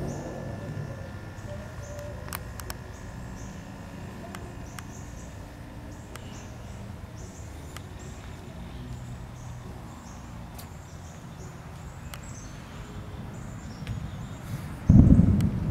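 Thunder breaks out suddenly and loudly near the end, over a steady low rumble of the storm. Faint, short high chirps repeat throughout, with a few sharp clicks.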